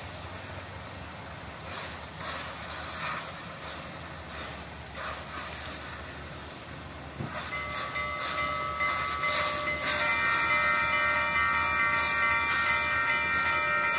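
Union Pacific 844, a 4-8-4 steam locomotive, approaching with a steady rumble and hiss. About seven seconds in its steam whistle starts to sound, and about ten seconds in it opens into a full, held chord.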